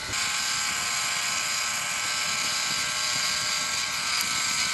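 Small electric rotisserie motor turning the spit, a steady whine with several overtones.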